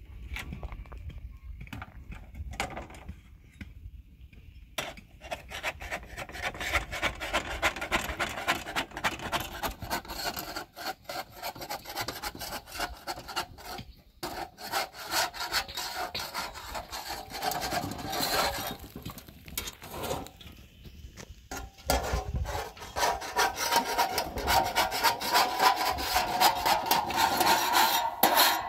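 Rapid, repeated scraping strokes, as of something rubbing hard against wood. They start abruptly about five seconds in after a few scattered quieter noises, and grow louder near the end.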